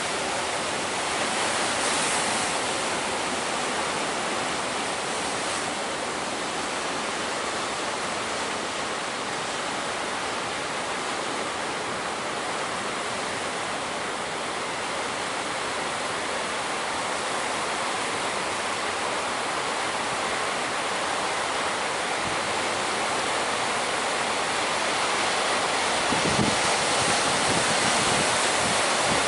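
Heavy sea surf breaking steadily, with strong wind: a continuous rushing noise that swells and eases slowly. Near the end comes a brief low thump of wind striking the microphone, and the rush grows a little louder.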